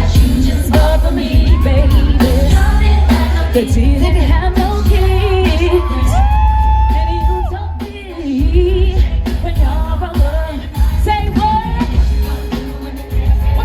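Live R&B/pop music with heavy bass and singing, loud throughout, with a brief dip in loudness about two-thirds of the way through.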